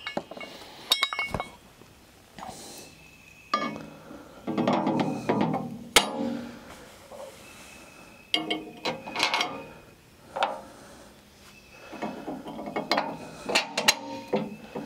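Steel hook-and-D-ring bracket being set onto the bolts of a tractor loader bucket's lip by hand: metal clinking, scraping and rattling in three bouts, with sharp clicks between them. The loudest click comes about six seconds in.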